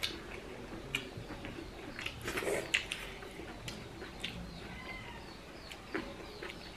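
Close-up eating sounds: chewing and lip smacks, with fingers working rice and meat on a plate, as a string of small clicks and smacks, the loudest about two and a half seconds in.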